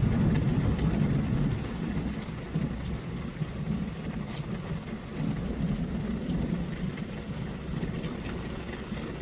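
Thunderstorm rain falling onto tarps outside a window, with scattered drop ticks. A low rumble of thunder sits under the rain, strongest over the first two seconds and then lingering.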